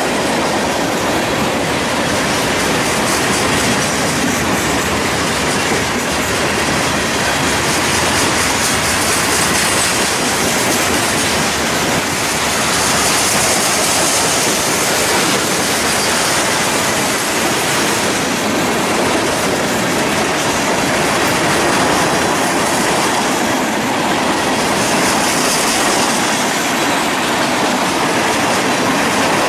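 Freight train of covered hoppers and tank cars rolling past at close range: a steady, loud noise of steel wheels on rail, with a higher hiss swelling twice, around the middle and near the end.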